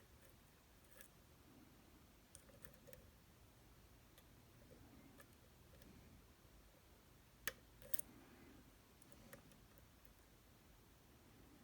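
Faint, scattered small clicks of lock picks working the pins of an Alpha ED 14-pin dimple lock, with two sharper clicks about half a second apart past the middle.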